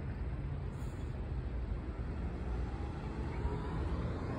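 Steady low rumble of street traffic, with a city bus and cars idling and moving at a railroad crossing.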